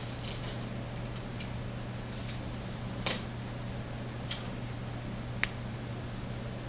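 Small metal lock parts and tools clicking and tapping against a work surface: a few light ticks, then three sharp clicks, the loudest about three seconds in, over a steady low hum.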